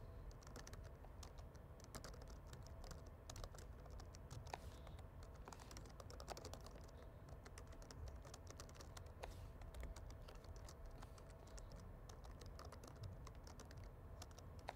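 Faint typing on a computer keyboard: irregular quick key clicks, in spurts, as code is entered.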